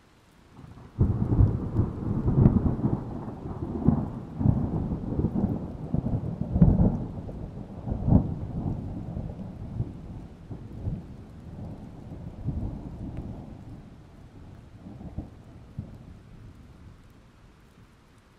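Thunder: a sudden clap about a second in, then a low rumble with several crackling peaks that slowly dies away over about fifteen seconds, with rain falling.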